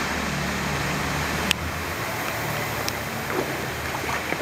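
Mountain stream water rushing steadily, with a single sharp click about a second and a half in.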